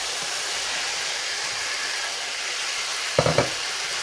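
Chicken, peppers and mushrooms sizzling steadily in a hot frying pan as corn and kidney beans are added. A quick clatter of three knocks comes about three seconds in.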